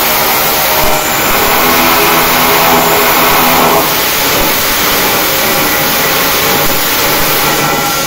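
Flux-cored arc welding: the wire-feed gun's arc crackling and hissing steadily as a bead is run up a vertical steel seam, with a faint steady hum underneath.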